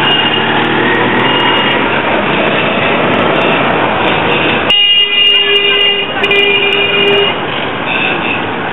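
Busy street traffic noise, then a vehicle horn honks twice in long, steady blasts starting about halfway through.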